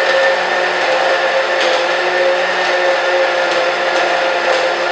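Personal push-down blender's motor running steadily at full speed, its cup held pressed onto the base to keep it spinning, blending a peanut butter shake.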